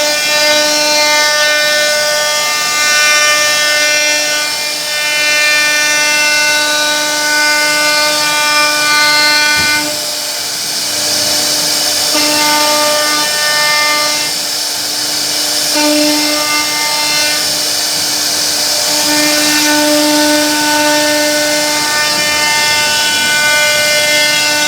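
CNC router spindle running with a steady whine, its bit carving a wooden board; the tone weakens briefly a couple of times and comes back.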